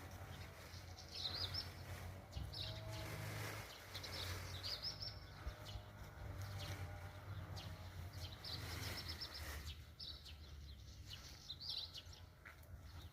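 Small birds chirping faintly in short high calls every second or two, over a low steady hum.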